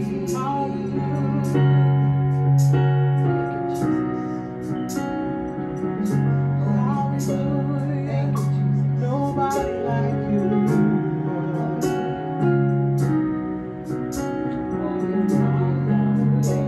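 Gospel worship song: a Roland electronic keyboard plays long held chords while women sing a wavering melody over it.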